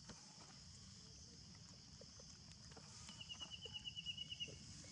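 Faint outdoor ambience: a steady high hiss, with a rapid trill of short repeated notes, about eight a second, starting about three seconds in and lasting about a second and a half.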